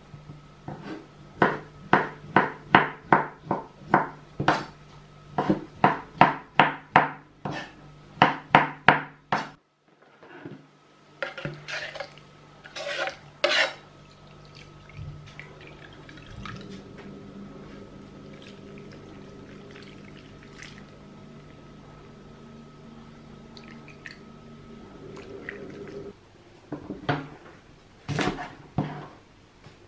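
Chef's knife chopping peach slices on a wooden cutting board: a quick run of sharp knocks, about two a second, for the first nine seconds or so. Then liquid is poured from a small cup into a frying pan, and near the end the knife chops celery on the board with a few more knocks.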